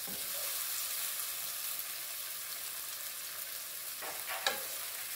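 Chopped onion, scallion, tomato and garlic sizzling in a little hot vegetable oil in a pot, a steady hiss. About four seconds in, a few knocks and scrapes of a wooden spoon against the pot as the vegetables are stirred.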